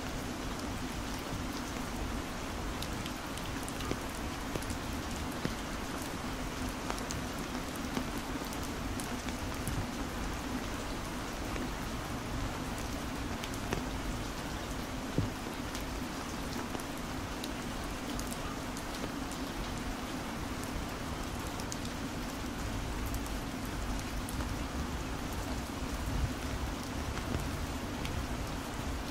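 Heavy rain falling steadily, with many individual drops ticking close by and a few sharper drop hits standing out.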